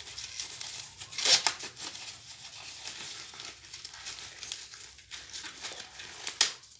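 Dry corn husks and leaves rustling, crackling and tearing as ears of corn are handled, with a louder rip about a second in and another near the end.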